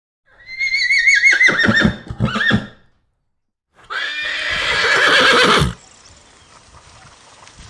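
Two loud animal calls. The first is a wavering, trembling call that falls in pitch and breaks into short pulses. After about a second's pause comes a second, harsher call that grows louder and cuts off suddenly.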